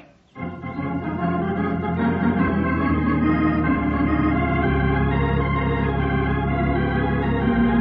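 Organ music bridge in a radio drama: sustained chords come in about half a second in and grow louder, with a chord change near the end, marking the change of scene.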